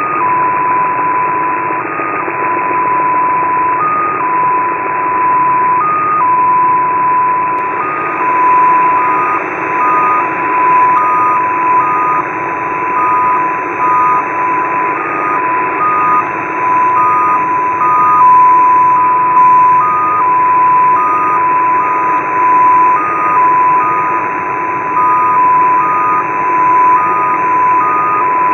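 Shortwave receiver audio in upper sideband: a steady hiss of band noise with a data tone near 1 kHz that hops briefly to a slightly higher pitch every second or two, the keying of the XPA2 digital number station.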